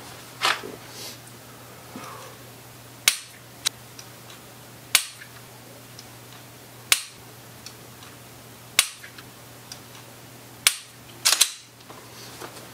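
Unloaded pistol dry-fired five times, about two seconds apart: each trigger press ends in a sharp click, followed a moment later by a fainter click as the trigger is reset.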